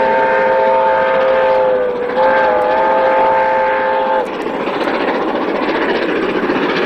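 Steam whistle of New Zealand KA-class 4-8-4 steam locomotive KA 945, sounding several notes at once in two long blasts. The first is already sounding and ends just under two seconds in; the second runs from about two to about four seconds in. After that comes the steady running noise of the locomotive working past with its train.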